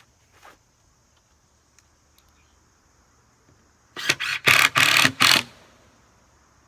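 A power tool run in about six quick bursts over a second and a half, starting about four seconds in.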